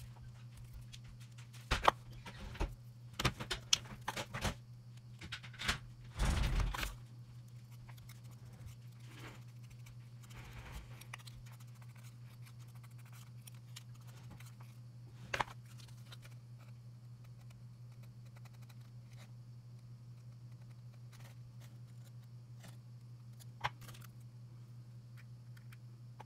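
Metal palette knife clicking and scraping on a foil-covered mixing board as metal filler paste is worked. There is a burst of clicks and scrapes in the first several seconds, then a few single clicks, over a steady low hum.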